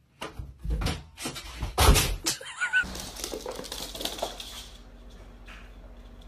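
A cat jumping from a dresser and crashing against a cardboard box in a closet: several knocks and thumps, the loudest a bang about two seconds in.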